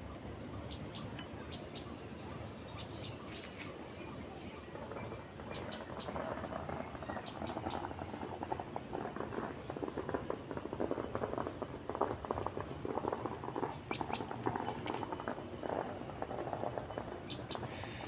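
Forest ambience: a steady hum from a distant motorbike and a few faint bird chirps, joined from about six seconds in by louder, crackly rustling of leaf litter and undergrowth.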